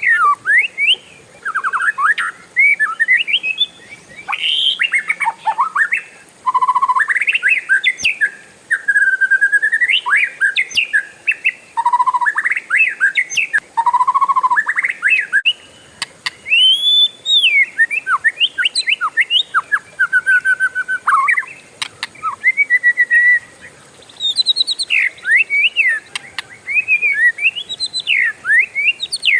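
Oriental magpie-robin (kacer) singing a long, varied song of clear whistles, fast trills and rising and falling sweeps, with only short pauses between phrases.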